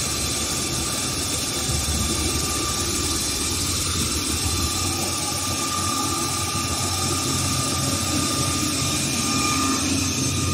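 HS1300 plastic film slitter rewinder running, slitting plastic film and winding it onto rolls: a steady rushing machine noise with a faint high whine.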